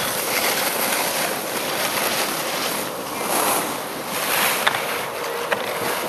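Wind buffeting the camera's microphone, a rushing noise that swells and eases, with a couple of faint clicks near the end.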